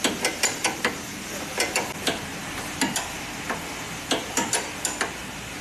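Irregular sharp clicks and taps, often in quick pairs or clusters, from hand tools and metal parts being handled while a car's front suspension is checked.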